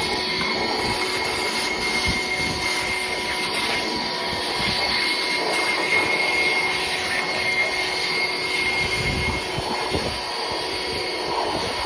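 RYOBI 18V cordless bucket-top wet/dry vacuum running steadily, a motor whine over a rush of air, sucking up dirt and debris from the floor.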